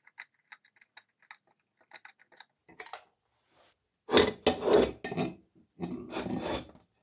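Light metal clinks as the bench grinder's motor parts are handled, then two loud stretches of scraping as the steel rotor and shaft are slid out of the motor's stator housing.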